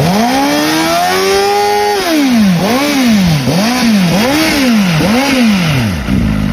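VOGE RR500S's four-cylinder engine revved while the bike stands still: it climbs from idle and holds high revs for about two seconds, then four quick throttle blips rise and fall, and it drops back to idle near the end.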